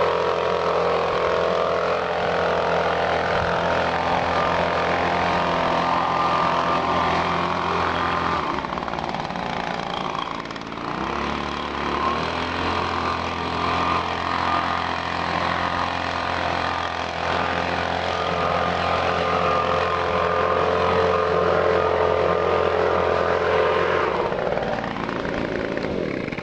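Echo PB-250LN handheld leaf blower's small two-stroke engine running at part throttle while blowing leaves, held no higher than about half throttle because the engine is still being broken in. The engine eases off for a few seconds about nine seconds in, then picks up again, and near the end its pitch falls as the throttle is let off.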